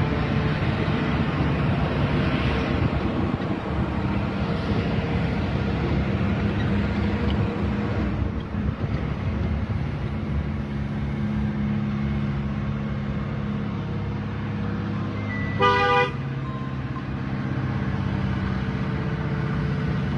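Heavy truck's Caterpillar C15 diesel engine running steadily under load, with one short horn toot about three-quarters of the way through.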